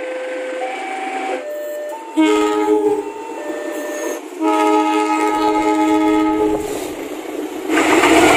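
Indonesian diesel train air horns sounding a series of blasts: first short single-note toots, then two chords of several notes, the second held for about two seconds. Near the end a loud rushing noise takes over.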